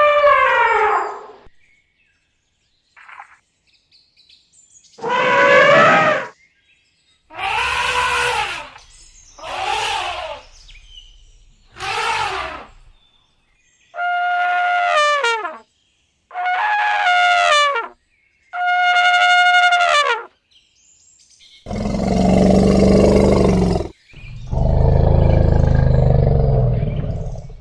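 Elephants trumpeting: about seven separate brassy, horn-like calls of a second or two each, several sliding down in pitch, with silent gaps between. Near the end come two longer, lower, rough roaring calls.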